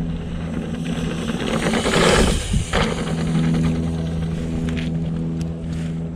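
Mountain bike riding a trail, with a steady buzzing hum under the ride that drops out briefly about two and a half seconds in. A loud rush of tyre-on-dirt noise comes about two seconds in.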